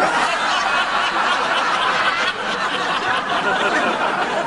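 A crowd of people laughing together, a dense, steady wash of many voices.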